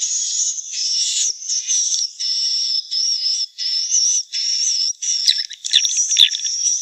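Swiftlet lure call: high, rapid twittering chirps in phrases about half a second to a second long, separated by short breaks. This is the kind of call played in swiftlet nest houses to draw swiftlets in.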